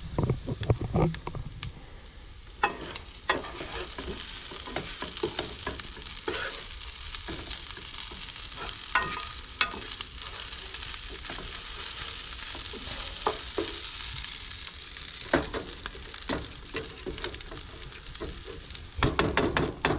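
Potatoes sizzling as they fry in a pan, with a utensil scraping and knocking against the pan in short clicks as they are stirred and turned, busiest near the start and just before the end.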